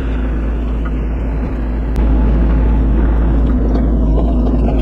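Bobcat E42 mini excavator's diesel engine running steadily under work, getting louder about two seconds in.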